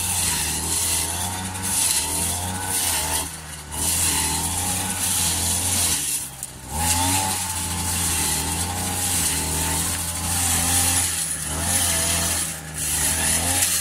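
Motor scythe engine driving a chopper, chopping dried grass into chaff: a steady engine run with a hiss of chopped material. The engine note dips briefly about three and a half and six and a half seconds in, then picks up again.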